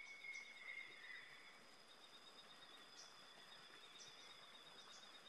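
Near silence, with faint steady high-pitched tones and a few faint short chirps.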